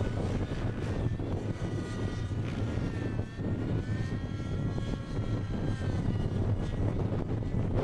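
Nitro glow engine and rotors of a 90-size Dyna-X RC helicopter flying aerobatics: a steady engine whine that rises and falls in pitch with the manoeuvres, over a low rumble.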